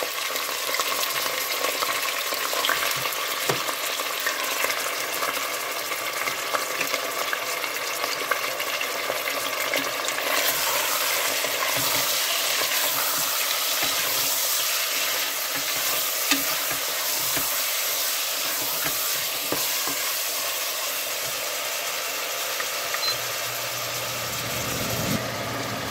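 Chicken pieces sizzling in hot oil in a metal pressure cooker pot, stirred and turned with a wooden spatula that scrapes and knocks against the pot. The sizzle gets louder about ten seconds in.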